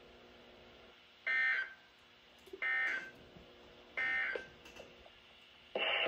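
Three short bursts of EAS/SAME digital data tones, the end-of-message signal of a National Weather Service Required Weekly Test, coming from NOAA weather radio receivers. Each burst is a harsh warble lasting under half a second, and they come about a second and a half apart over a faint hum. Another sound starts just before the end.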